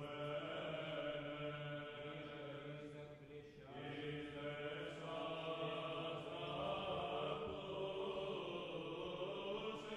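Soft background music: a slow sung chant of long held notes.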